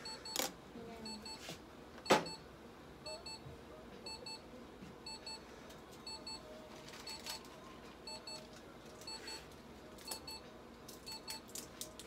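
Electronic beeping from clinic equipment: short high beeps, mostly in pairs, repeating about every second or so. A few sharp clicks and knocks fall in between, the loudest about two seconds in, with a cluster of small clicks near the end.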